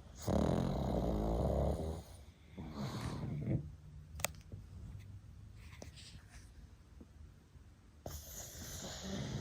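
Pug snoring in its sleep: a long, loud, rattling snore about two seconds long, a shorter snore right after it, then a quieter stretch before the next snore begins near the end.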